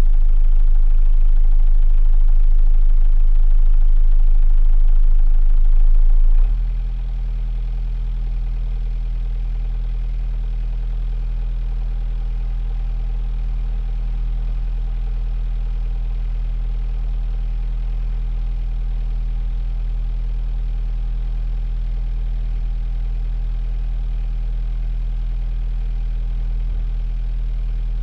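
A 45 ft sailboat's inboard diesel engine running steadily, heard from inside the rear cabin. About six seconds in its speed changes abruptly and it runs on more quietly at the new steady speed.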